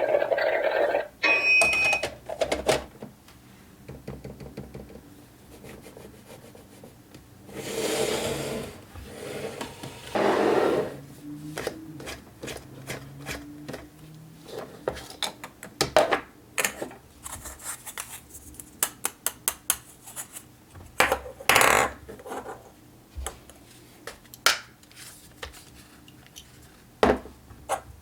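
Small plastic toy kitchen appliances being handled: irregular sharp clicks and taps of plastic parts, with a few longer rustling scrapes, the longest about a third of the way in, and a short electronic beep near the start.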